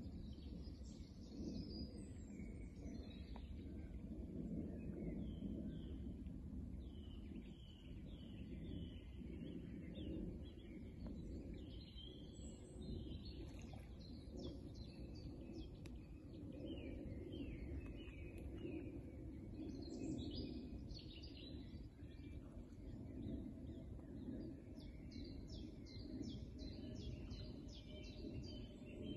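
Several small birds singing, a busy mix of short chirps and trills, over a steady low background rumble.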